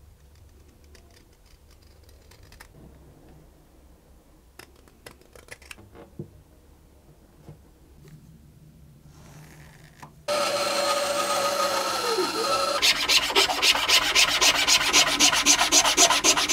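A hand tool works the wooden edge of a maple cello bridge blank. Faint light scratches come first. About ten seconds in, loud continuous rubbing starts, with a squeal that dips in pitch. It then changes to quick, even filing strokes, about four a second.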